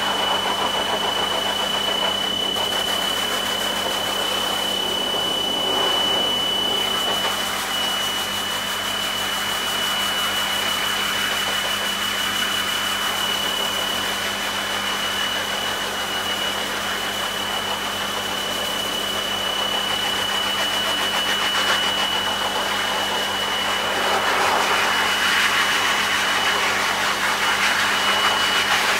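High-velocity pet force dryer running steadily: a constant high motor whine over a rush of blown air. The air noise swells and fades as the nozzle is moved over the coat.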